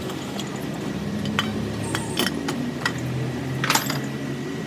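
Metal tools and parts clinking and tapping: a dozen or so light, sharp clicks with a quick cluster near the end, over a steady low hum.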